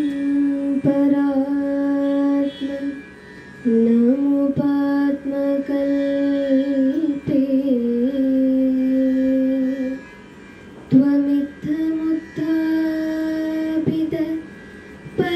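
A young woman singing solo and unaccompanied into a handheld microphone: a slow melody of long held notes moving in small steps, with short pauses about three seconds in, about ten seconds in and near the end.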